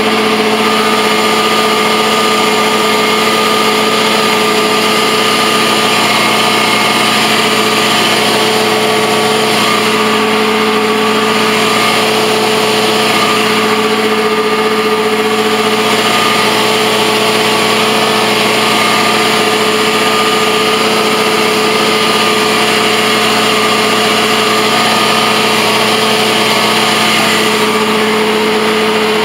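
Truck-mount carpet cleaning machine running steadily, its Honda IGX700 twin-cylinder engine driving the unit. A constant hum with a whine above it sits over a loud, even rushing noise that does not change.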